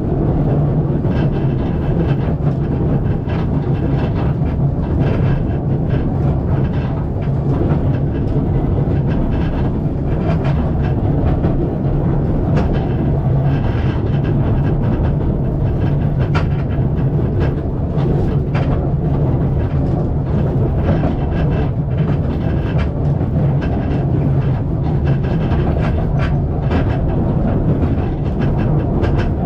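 Carriage of the narrow-gauge Southern Fuegian Railway steam train running along the track, heard from inside the carriage: a steady low rumble with scattered clicks and rattles of wheels on rail.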